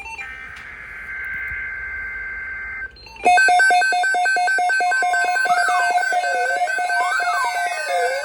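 Emergency alert signal audio: a steady high electronic buzz lasting nearly three seconds, then after a short gap a loud, rapidly pulsing two-tone alarm with rising and falling sweeping tones over it.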